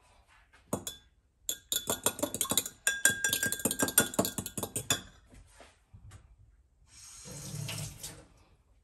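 Eggs being beaten with a metal fork in a small glass cup: a single tap, then a rapid clatter of the fork striking the glass for about three and a half seconds. Near the end a short, softer scraping rush.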